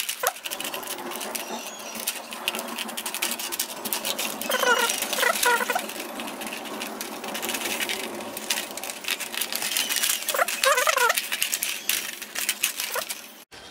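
Scissors cutting through the thin plastic wall of a soda bottle: a continuous run of small snips and crackles as the blades bite and the plastic flexes. Twice, about five seconds in and again near eleven seconds, a short wavering squeak rises over the cutting.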